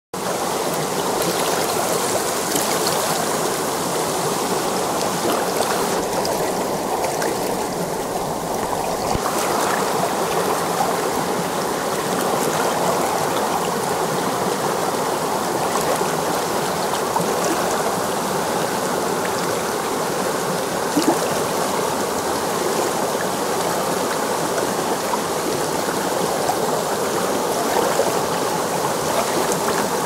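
Shallow rocky stream babbling over stones and small rapids, a steady rush of running water, with one brief click about two-thirds of the way through.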